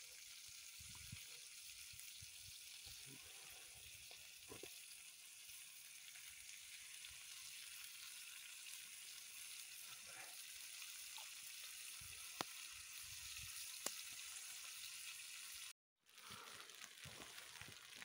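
Fish frying in a pan over a campfire: a steady, faint sizzle, with a few sharp pops in the second half.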